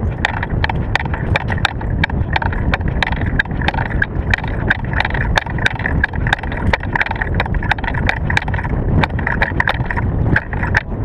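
Rapid, irregular clacks and slaps, several a second, of hands catching, gripping and spinning a Springfield exhibition drill rifle, picked up by a camera mounted on the rifle itself, over a steady low rumble of handling noise.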